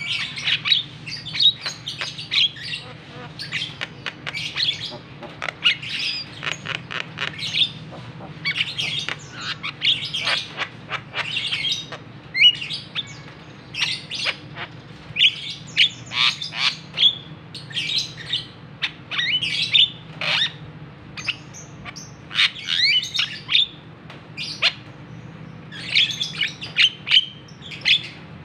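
Javan myna (jalak kebo) calling: clusters of harsh, chattering squawks and whistled notes, one burst every second or two.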